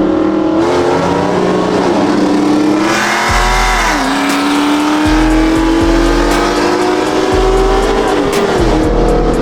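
Car engine under hard acceleration through the gears, its pitch climbing steadily and dropping sharply at each upshift, about four seconds in and again near the end.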